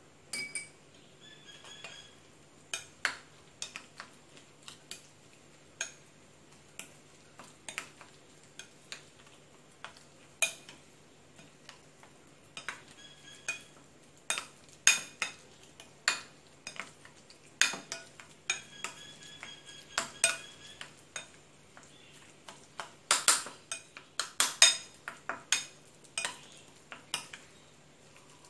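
Metal spoon stirring and pressing a minced shrimp and pork dumpling filling in a ceramic bowl: irregular clinks and scrapes of the spoon against the bowl, some ringing briefly. The clinks come in a quicker cluster about three-quarters of the way through.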